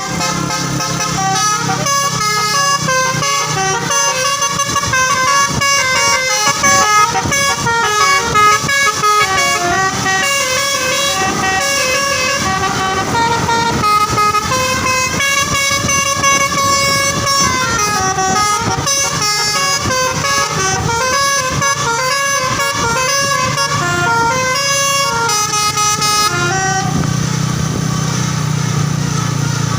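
Bus basuri (telolet) multi-tone horn playing a long melody of quickly changing notes over the bus engine's rumble. The horn stops a few seconds before the end, leaving the engine running.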